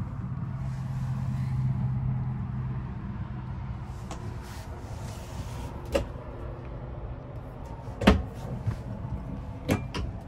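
Camper cabinetry being handled: a wooden cabinet door and a hinged flip-down storage panel opened, giving a few sharp clacks and knocks, the loudest about eight seconds in. A steady low hum underneath fades out after the first few seconds.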